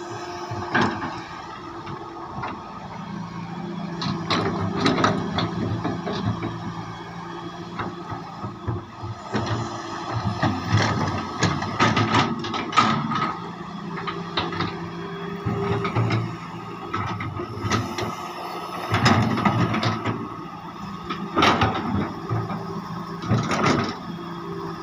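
Heavy excavator's diesel engine running steadily under work, with repeated sharp metallic clanks and knocks as the machine digs and moves.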